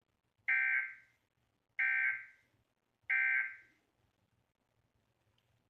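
Emergency Alert System end-of-message signal: three identical short bursts of buzzy digital data tones (the SAME "NNNN" code), about 1.3 seconds apart, each trailing off in a short echo.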